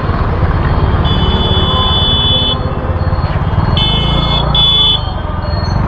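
Low rumble of a moving vehicle in street traffic, with a high, steady electronic beeping over it: one long beep about a second in, then two shorter beeps near the end.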